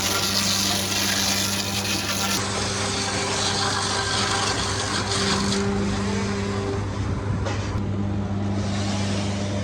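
Heavy machinery running steadily with a constant low hum. A loud hiss over it drops off sharply about two and a half seconds in and fades out about six seconds in.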